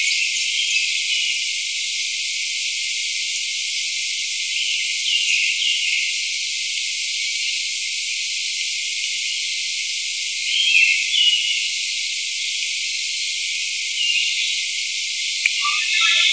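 Steady high hiss, with short faint chirps now and then and a click and livelier chirping near the end.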